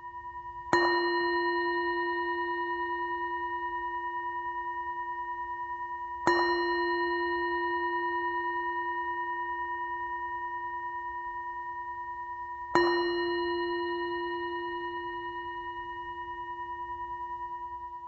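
A bell struck three times, about six seconds apart, each stroke ringing on for many seconds and fading slowly with a gentle wavering in loudness.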